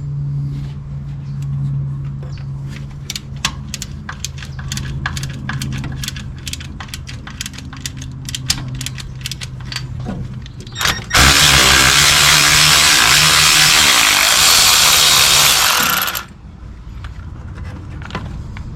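Rapid, irregular clicking of a ratchet working a fastener for about ten seconds. Then, about eleven seconds in, a 3/8-inch impact ratchet runs loud and steady for about five seconds and stops abruptly.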